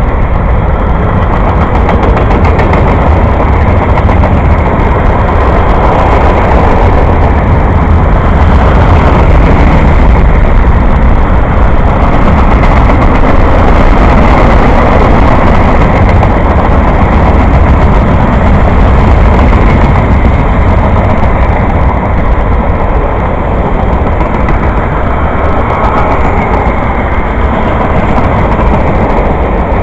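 Freight train cars rolling past close by: a loud, steady rumble of steel wheels on rail.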